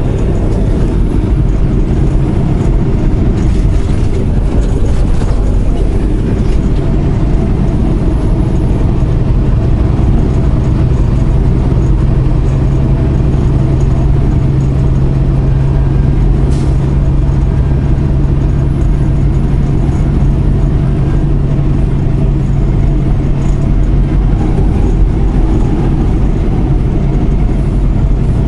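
Semi truck cruising on the highway, heard from inside the cab: steady low engine drone and road rumble, with a hum that grows stronger about a third of the way in.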